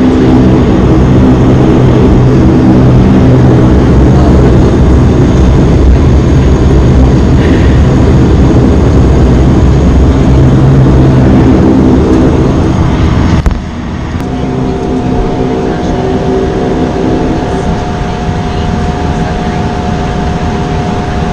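Turboprop engines and propellers of a Bombardier Dash 8 Q400 running, a loud steady drone with propeller hum heard from a window seat in the cabin. About two-thirds of the way in it cuts abruptly to a quieter, steady cabin drone with a constant tone.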